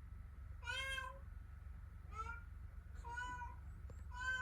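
A domestic cat meowing repeatedly: four short calls about a second apart.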